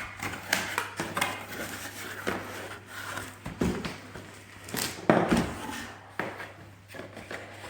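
A cardboard box being opened and its contents handled: irregular rustling, scraping and knocks, the loudest a few knocks about five seconds in.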